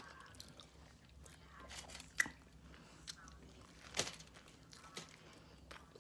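Close-up chewing and mouth sounds from someone eating a steak torta, with a bite into the bread roll about four seconds in. There is a sharp click a little after two seconds.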